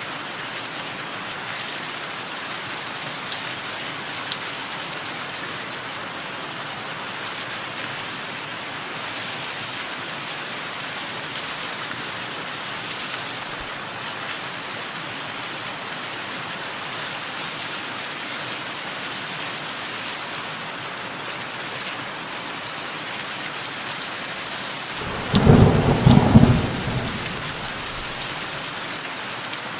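Steady rain with small birds chirping in short, high calls again and again. Near the end a loud clap of thunder rumbles for about two seconds.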